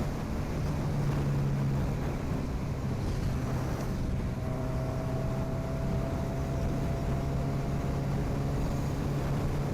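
Honda CB1000R inline-four with an aftermarket sport exhaust, running at a steady cruising speed without revving up or down. Wind rushes over the microphone.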